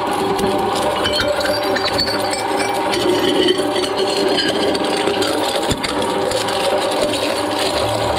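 Twin-shaft shredder running steadily while its cutter discs crush green glass wine bottles, with glass cracking and shards clinking and rattling among the blades.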